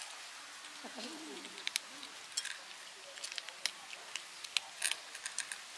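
Kittens chewing dry kibble: irregular crisp crunches and clicks, thicker in the second half. A low, wavering animal call is heard about a second in.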